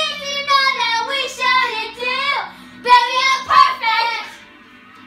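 Young girls singing along together, their voices breaking off about four seconds in.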